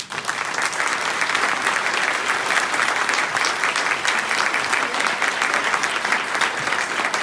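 Audience applauding, dense steady clapping that breaks out at the close of a keynote speech and holds at full strength.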